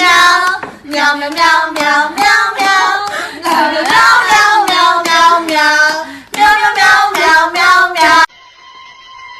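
A high voice singing a rhythmic tune, syllable after syllable, which cuts off abruptly about eight seconds in; a faint steady tone follows.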